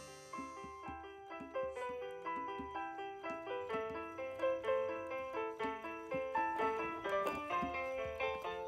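Digital piano keyboard played with both hands: a brisk passage of many notes and chords.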